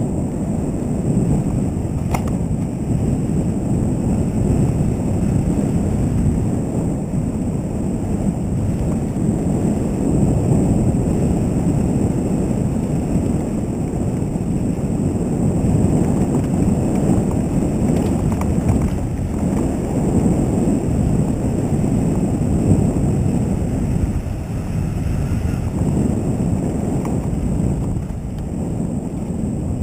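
Wind buffeting the camera microphone over the steady rumble of mountain-bike tyres rolling on a dirt trail, with a couple of brief clicks or rattles.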